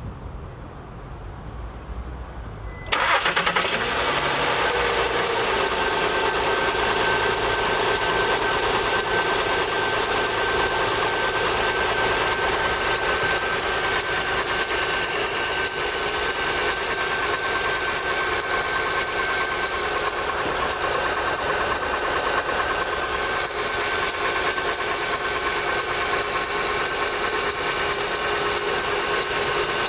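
Honda Pilot's 3.5-litre V6 starting from cold about three seconds in, then running steadily with a fast, even knocking. The knock is heard only while the engine is cold and is gone once it warms up.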